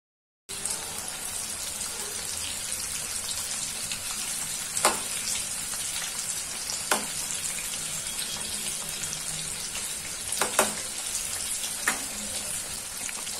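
Flour-coated chicken pieces deep-frying in hot oil, a steady sizzle that starts abruptly about half a second in. A spatula knocks against the pan a few times as the pieces are turned.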